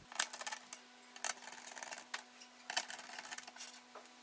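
Irregular small metallic clicks and ticks of a screwdriver driving the screws that hold a CPU cooler down onto its heatsink plate, over a faint steady hum.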